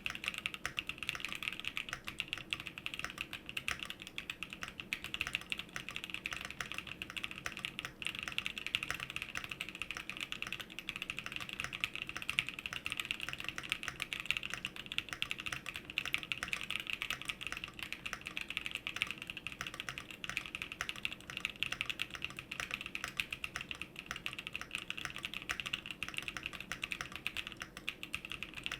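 Fast, continuous typing on a custom 65% mechanical keyboard (Fox Lab Leaf 65) with Gazzew Boba LT linear switches, an aluminium plate, full foam with a PE foam mod, and Durock V2 stabilizers. The keystrokes come in a dense, even stream of soft, muted clacks.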